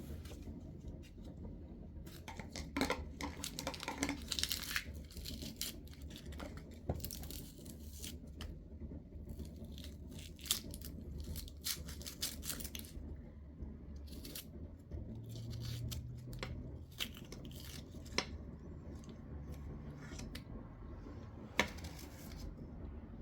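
Irregular small clicks, taps and short scraping, tearing rustles of things being handled, over a steady low rumble.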